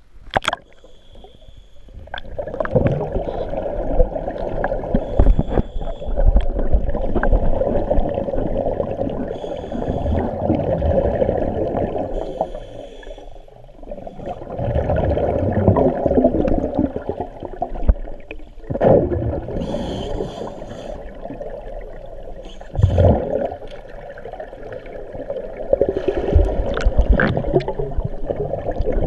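Scuba divers' exhaled air bubbling from their regulators, heard underwater, in rushes a few seconds long with quieter gaps between breaths.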